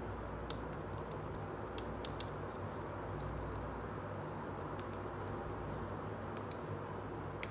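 Light plastic clicks and taps from a small toy vanity mirror with a hinged cover being handled, opened and folded, a few at a time: once early, a cluster around two seconds in, and more around five and six and a half seconds in. Under them runs a steady hiss with a low hum.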